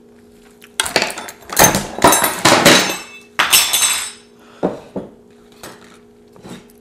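Dishes and a bowl clattering and clinking with ringing knocks as a bowl of salsa is spilled. The clatter lasts about three seconds, starting about a second in, and is followed by a few lighter knocks of dishes set back down.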